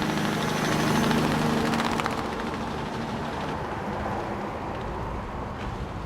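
A large vehicle engine running steadily under a broad rush of noise, loudest about a second in and easing slightly after.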